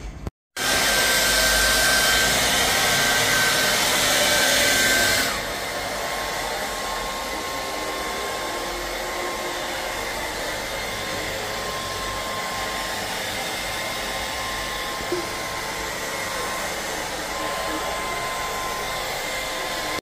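Handheld hair dryer blowing hair dry with a steady rushing noise and a faint whistle in it. It is louder for the first five seconds or so, then drops to a lower, steady level.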